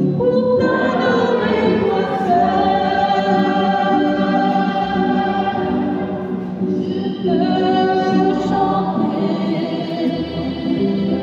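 Religious hymn sung in long held notes over a steady sustained accompaniment, with a short break between two phrases about six and a half seconds in.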